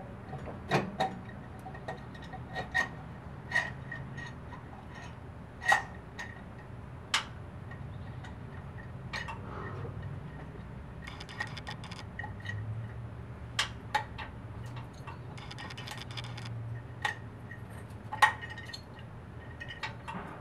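Scattered light metallic clicks and clinks, with two short rattling runs in the middle and later on, from the piston, wrist pin and clip and the aluminium cylinder of a GY6 150cc engine being handled and fitted by hand during a top-end rebuild.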